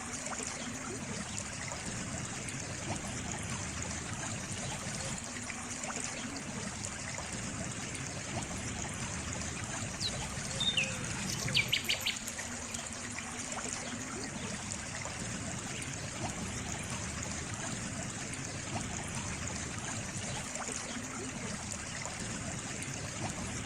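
Water trickling and flowing steadily. About halfway through, a bird gives a few brief, quick chirps.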